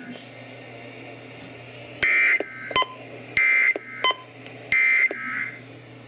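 Three short screechy bursts of SAME digital data, the EAS End of Message (NNNN) code that marks the end of an alert, sounding from a weather radio receiver's speaker about 1.3 seconds apart. A low steady hiss from the receiver runs underneath.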